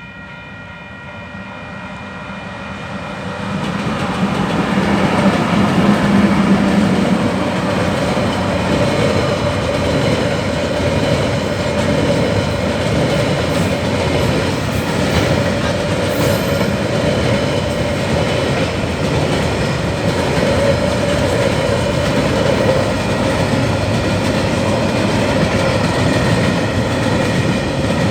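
A train hauled by EF-class electric locomotives passing close by. A horn's steady note dies away at the very start as the rumble builds over the first four seconds. The wheels' steady rolling clatter on the rails then carries on as the train goes by.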